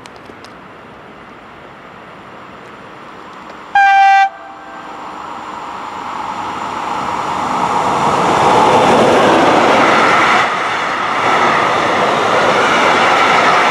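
A train approaching and passing. It gives one short horn blast about four seconds in, and its running noise then builds until it is loud through the second half.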